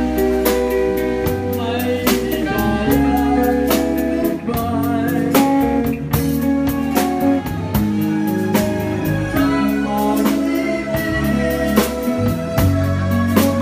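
Live band music: a drum kit keeping a steady beat under electric bass, keyboard and a singing voice.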